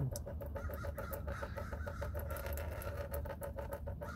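Wind rumbling on the microphone, with a fast, irregular crackle over it, while dark used oil thinned by engine flush streams from the oil pan drain plug.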